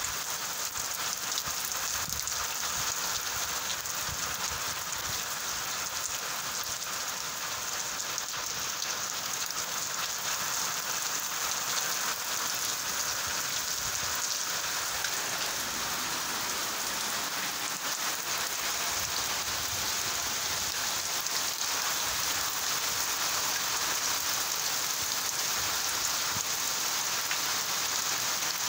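Heavy rain falling steadily, an even hiss of drops splashing on a wet paved drive and garden plants.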